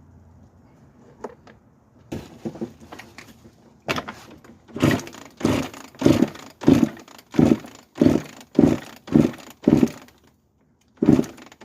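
Dirt bike engine being cranked over with a freshly fitted spark plug, a regular run of chugs about one and a half a second that stops briefly and resumes near the end without the engine catching. Some clattering and rattling comes first.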